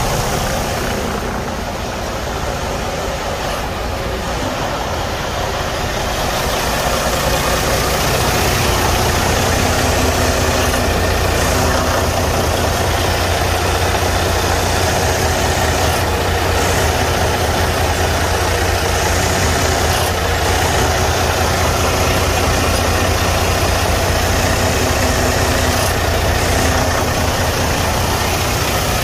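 Detroit DD15 inline-six diesel idling steadily. The engine has a cracked cylinder liner that leaks coolant into the oil and pushes blow-by out of the oil filler.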